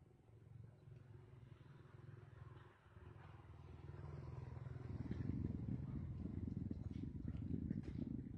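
Low engine rumble of a motor vehicle running, growing louder about four to five seconds in.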